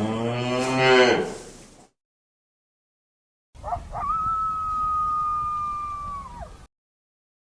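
Two mammal calls. The first is a deep call that rises and then falls in pitch over about two seconds. After a pause comes a long, high-pitched call, held steady for about three seconds and dropping at the end.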